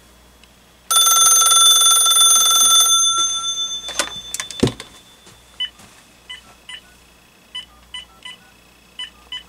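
Electronic telephone sounds from a RadioShack (Uniden) 43-1107 D 900 MHz cordless phone on a test line. A loud buzzing tone plays for about two seconds and fades out, followed by a few clicks. After that come short keypad beeps, often in quick pairs, as its number buttons are pressed and tested.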